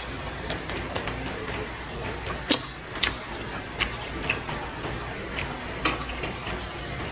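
Close-up eating sounds of grilled chicken being chewed: irregular short clicks and smacks of the mouth, the loudest about two and a half seconds in, over a steady low hum.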